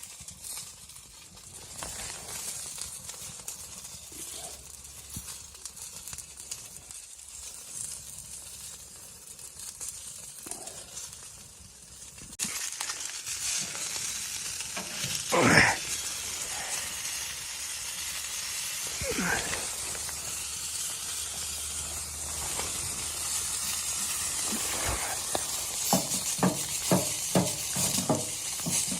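Something sizzling in a hot pan, starting suddenly about twelve seconds in, with a loud brief scrape a few seconds later and quick clicks near the end.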